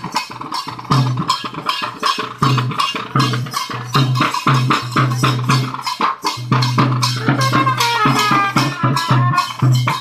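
Kavadi dance music: fast, steady drumming with a repeating low drum beat, and a high melody line joining about three-quarters of the way through.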